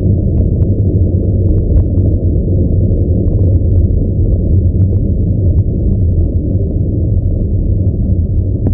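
Loud, steady rumble of wind buffeting the microphone on a bicycle going downhill, with a few faint ticks scattered through it.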